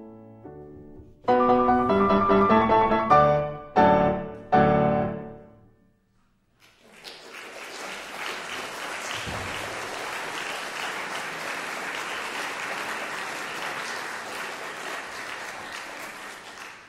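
Concert grand piano closing a piece: a few soft notes, then loud chords from about a second in, the last struck about four and a half seconds in and left to ring out. After a moment of silence, the audience starts applauding and keeps up a steady applause.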